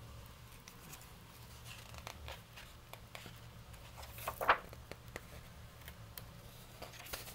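Faint rustling and small clicks of a paperback picture book's pages being handled and tilted, with one brief louder rustle about four and a half seconds in, over a low steady room hum.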